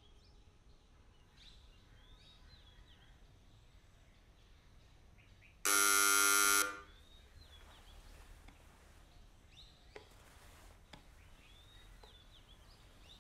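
A single steady vehicle horn honk lasting about a second, about halfway through, over faint bird chirps that recur throughout; otherwise quiet.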